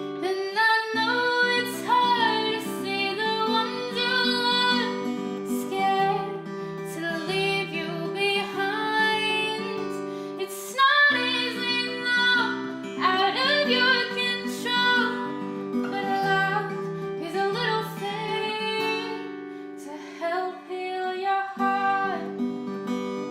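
A woman singing a slow, heartfelt song to her own acoustic guitar, the sung melody wavering over ringing guitar chords.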